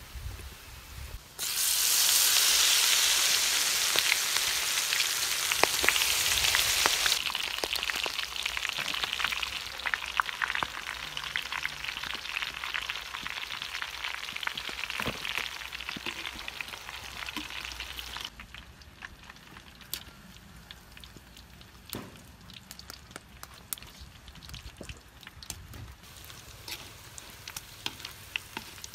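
Crickets deep-frying in hot oil in a wok. A loud sizzle starts suddenly about a second in and slowly dies down. After about eighteen seconds it drops to faint crackling and pops.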